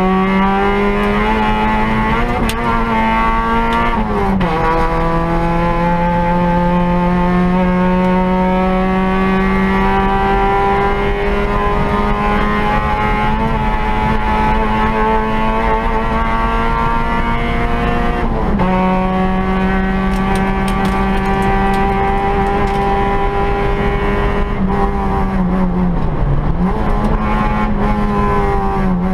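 Peugeot 106 rally car's four-cylinder engine, heard from inside the cabin, pulling hard. Its pitch climbs slowly through long pulls and drops sharply at upshifts, about four seconds in and again past halfway. Near the end the throttle lifts briefly, then pulls again.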